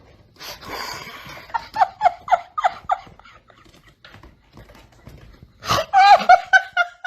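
A person laughing hard in two bouts of rapid, rhythmic ha-ha bursts, the second near the end.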